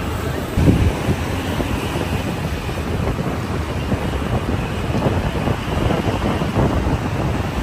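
Wind buffeting the microphone while travelling along a road, over the steady noise of traffic and motor scooters.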